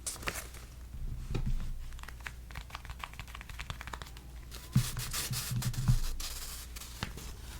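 Paper banknotes being rubbed and handled, with many short crisp crackles and a longer rustling stretch about five seconds in.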